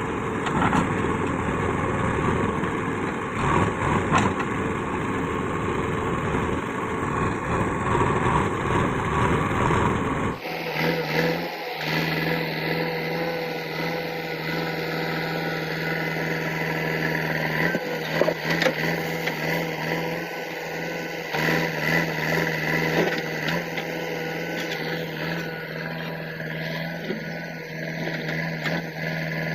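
JCB 3DX backhoe loader's diesel engine running. The sound is rough and noisy at first, then changes abruptly about ten seconds in to a steadier engine hum.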